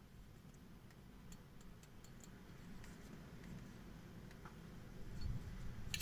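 Tobacco pipe being lit with a Zippo lighter: quiet draws on the pipe with faint small ticks, the draws growing stronger toward the end, then one sharp click at the very end.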